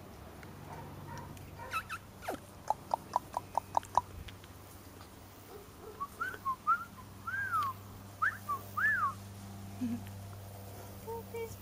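Golden Retriever puppies, four weeks old, whimpering: first a quick run of about seven short yips, then several high whines that rise and fall in pitch, over a steady low hum.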